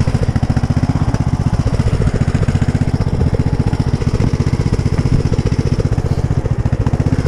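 Engine of an engine-swapped Poulan riding lawn mower running steadily, with an even, rapid pulse of firing strokes.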